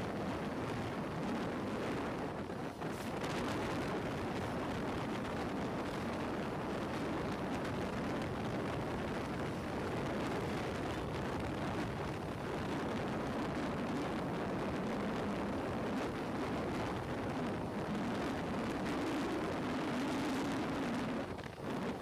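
Wind rushing over the microphone of a moving motorcycle, with a steady low engine drone underneath.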